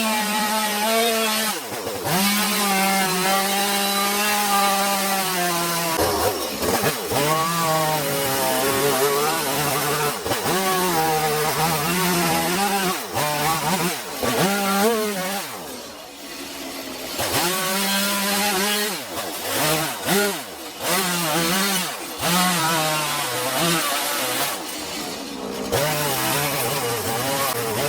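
A small two-stroke chainsaw (a 180C with a quarter-pitch carving chain) cutting into a log to rough out a carving. It runs at high revs, drops off and revs back up again and again between cuts.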